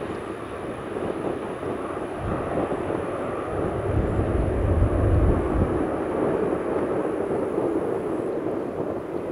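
Jet airliner engine noise: a steady, broad rumble that swells in its low end about four seconds in, then eases.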